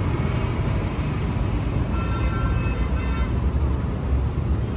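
Steady low rumble, with a faint high tone appearing briefly about two seconds in.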